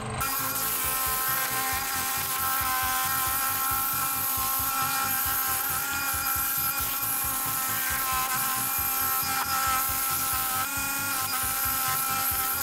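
Benchtop scroll saw running with a steady buzz while its blade cuts through a wooden board.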